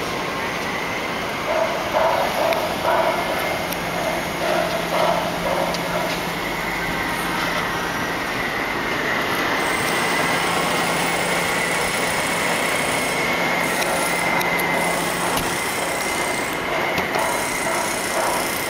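Steady city street noise: a continuous rumble and hiss with a steady high whine over it, and a low hum that stops about three-quarters of the way through.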